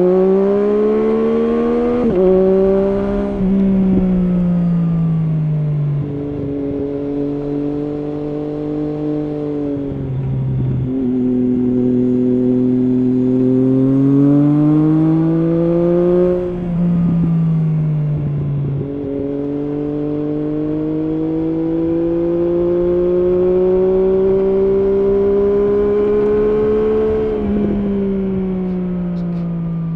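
Triumph Street Triple S three-cylinder engine through an SC Project SC1-R slip-on exhaust with its dB-killer fitted, heard on board while riding. It revs up hard at first with quick gear changes, then rises and falls in pitch through several shifts, builds slowly for a long stretch, and winds down near the end.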